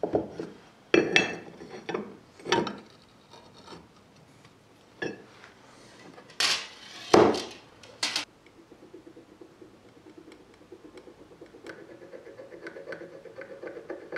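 Square steel bar handled on a steel workbench: a series of sharp clinks, knocks and scrapes as it is turned over and set down. About eight seconds in these give way to a faint, fast rhythmic scratching as a steel scribe is worked along a steel rule against the bar.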